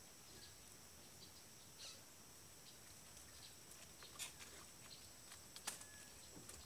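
Near silence: faint outdoor ambience with a steady faint high-pitched whine and a few faint clicks, the clearest about four and six seconds in.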